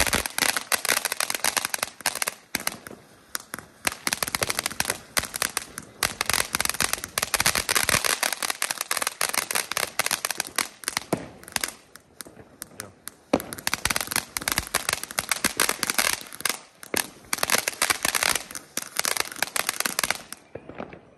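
Small ground fountain firework spraying sparks with a dense run of sharp crackles and pops, firing stage after stage in several spells with brief lulls between.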